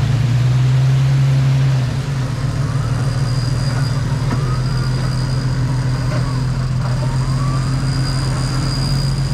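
A Jeep Cherokee's engine runs with a steady low drone as the 4x4 crawls through deep mud. It is louder for the first couple of seconds, then settles to an even level.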